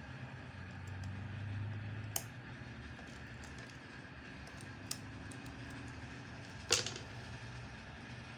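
Light clicks of metal tweezers and small parts on a mobile phone circuit board: three sharp ones, about two, five and seven seconds in, the last the loudest, over a steady low hum.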